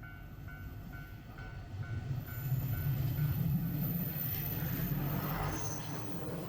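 Level-crossing warning bell ringing about twice a second while a diesel train crosses; the train's low rumble swells about two seconds in and drowns the bell, then the sound cuts off suddenly at the end.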